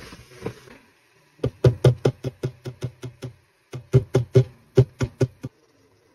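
A wooden spatula briefly stirs vegetables in a steel pot, then two runs of quick, sharp knocks, about five or six a second with a short break between, as ground masala paste is knocked and scraped out of a glass bowl into the pot.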